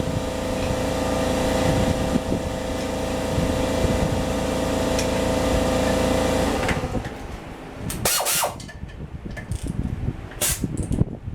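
A steady motor drone with a low rumble and a few held tones, cutting off about two-thirds of the way through, followed by scattered clicks and clanks of metal tools.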